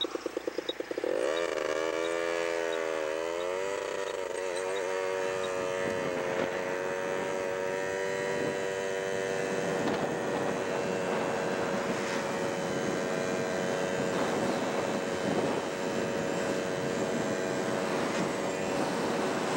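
A vehicle engine idling with a fast, even pulse, then accelerating about a second in. Its pitch rises and drops a few times as it gathers speed, then settles into a steady drone at cruising speed over road and wind noise.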